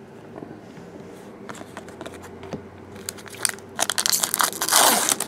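Foil wrapper of a hockey card pack crinkling and tearing open in the hands. It starts as faint scattered crackles and gets loud and dense over the last second and a half.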